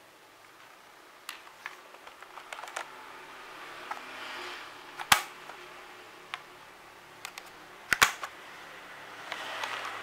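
An AKKO 3084 mechanical keyboard's plastic case being handled and turned over: scattered clicks and knocks, two sharp snaps about five and eight seconds in, and some rustling.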